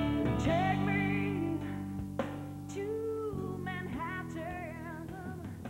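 Soundtrack song: a singer holding long, wavering notes over sustained instrumental backing, gradually getting quieter.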